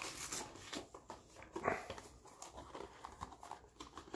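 Hands opening a cardboard trading-card box: scattered soft taps, scrapes and rustles of the cardboard, with one brief louder scrape about a second and a half in.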